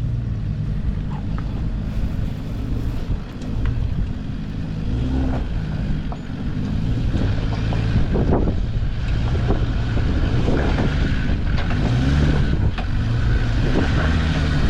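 Land Rover engine working at low speed on an off-road lane, its pitch rising and falling with the throttle, with occasional knocks from the vehicle over rough ground.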